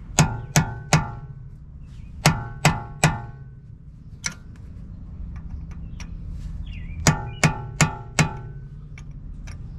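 Hammer blows on a steel punch driven against the staked collar of a CV axle nut, each strike ringing metallically. The blows come in quick runs: three, then three more, then four.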